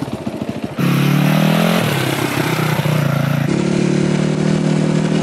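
Enduro motorcycle engine running steadily as the bike is ridden, starting about a second in, its pitch stepping down about two seconds in.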